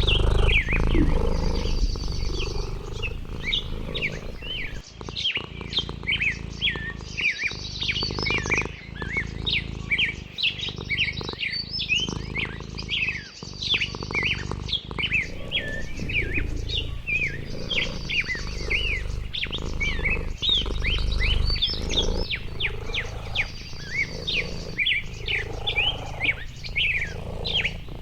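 Birds chirping in a busy chorus: many short, quick calls without a break, and a short high trill that comes back every five seconds or so, over a low rumble.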